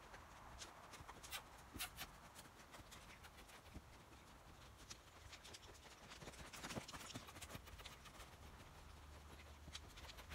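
Faint hoofbeats of a young saddled mustang moving around in deep sand, with scattered light clicks and knocks.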